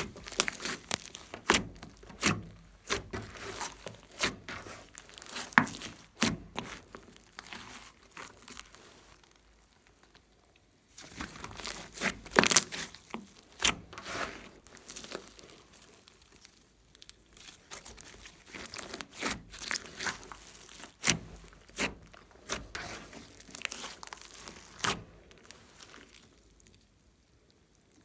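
Glossy slime mixed with clay and glitter being squeezed, stretched and pressed by hand, giving a rapid, irregular run of sticky clicks, pops and crackles. The sound stops briefly twice, about a third of the way in and near the end.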